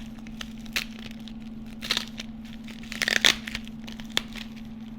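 Bubble wrap being handled and unwrapped, giving a few scattered crinkles and crackles, the loudest cluster about three seconds in. A steady low hum runs underneath.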